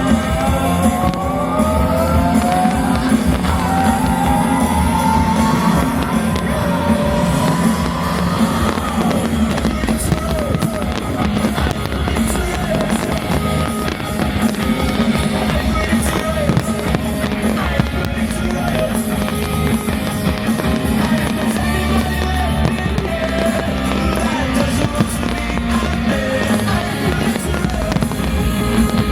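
Show music playing loudly over loudspeakers while fireworks burst and crackle overhead, the bangs and crackles scattered throughout.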